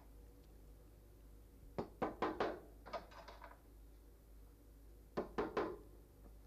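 Small nails being tapped into a wooden fur-stretching board with a hammer: quick runs of light knocks, about four near two seconds in, a couple more around three seconds, and three more near five seconds.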